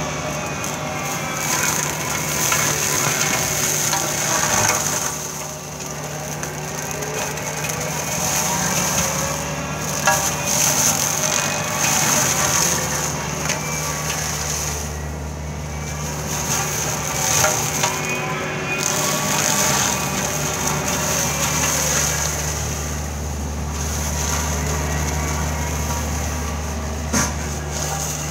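A Kubota KX71 mini excavator's diesel engine running steadily while its hydraulic brush-mulcher head spins with a high whine, crackling and snapping as it shreds scrub and grass.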